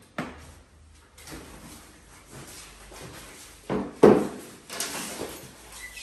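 Knocks and rattles of tools and motorcycle parts being handled, with a louder pair of clunks about four seconds in, followed by a short rustle.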